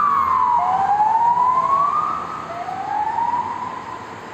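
Emergency vehicle sirens wailing, at least two at once, in slow rising and falling sweeps. They fade over the second half.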